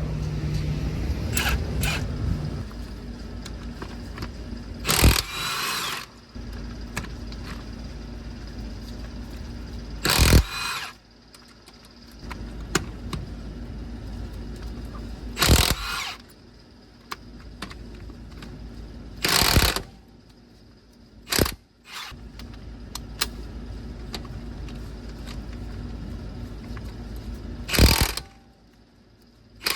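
Impact wrench run in about six short bursts a few seconds apart, running the lug nuts onto a front wheel being refitted, over a steady low background hum.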